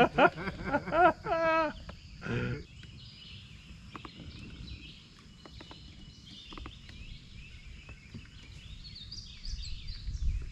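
Outdoor river ambience: birds chirping in short calls, thickest near the end, over a steady high insect hum, with a few faint clicks.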